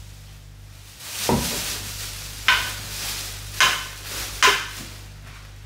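Platform stiletto heels striking a tiled floor in three sharp clicks about a second apart, with a plastic carrier bag rustling as it is carried and set down, and a dull thump shortly before the steps.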